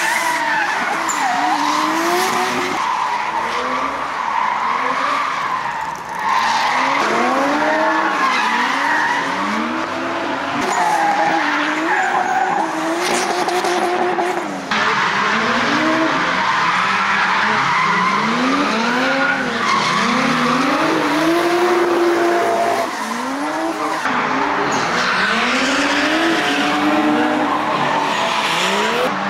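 Drift cars' engines revving hard, pitch swinging up and down with the throttle, over a steady squeal of sliding tyres. The sound jumps abruptly at several edits between clips.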